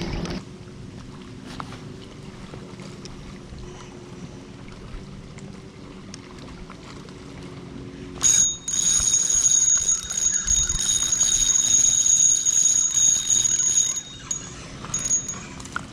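A steady, high-pitched whine that starts about eight seconds in and holds one pitch for about six seconds, with a brief return near the end. This fits a baitcasting fishing reel being cranked fast as a small bass is brought in.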